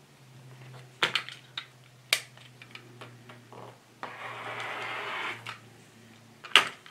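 Rotary cutter blade rolling along an acrylic ruler and slicing through cotton fabric on a cutting mat, a steady rasp lasting about a second and a half. Before it come a few sharp clicks and taps as the ruler and cutter are handled, and another sharp click near the end.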